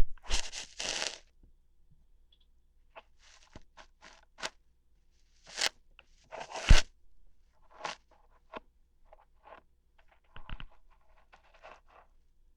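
Close-up ASMR ear-hair plucking sounds: short crunchy, tearing crackles at an irregular pace, some single sharp snaps and some quick clusters, loudest at the very start and again a little past the middle.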